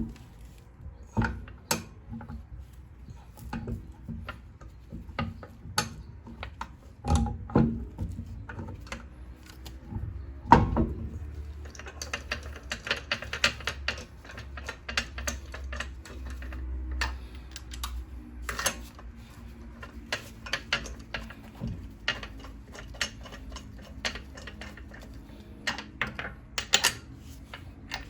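Irregular metallic clicks and knocks of a socket ratchet and tools as the rear wheel's lug bolts are run in, with a stretch of rapid ratchet clicking in the middle.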